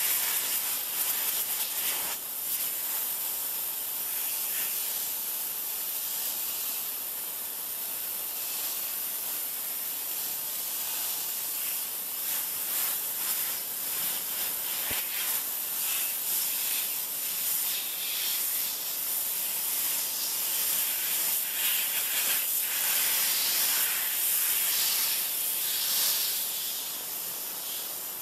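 Spray from a 3000 psi pressure washer's jet hissing steadily against plastic lawn chairs, growing slightly louder and softer as the spray moves over the plastic.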